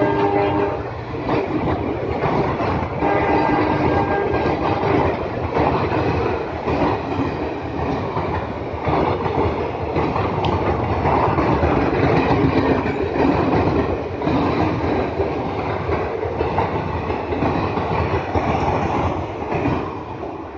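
EMD diesel locomotive's horn dying away just after the start and sounding again briefly about three seconds in, then a passenger express running past at speed, its coach wheels clattering over the rail joints. The rumble fades near the end.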